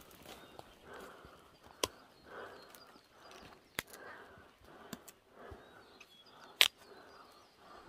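Footsteps through leaf litter and brush, about two steps a second, with several sharp cracks of twigs or branches. The loudest crack comes about two-thirds of the way through. Faint bird chirps sound in the background.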